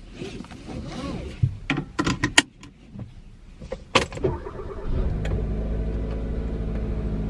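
Seatbelt rustling and buckling with several sharp clicks, then about five seconds in a car engine starts and idles with a steady low hum, heard from inside the cabin.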